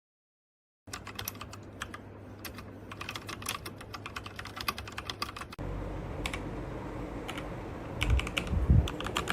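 Typing on a SHAVALIFE K87 mechanical keyboard: rapid, irregular key clicks starting about a second in. A little past halfway the background becomes louder and lower, and a heavier low thump comes near the end.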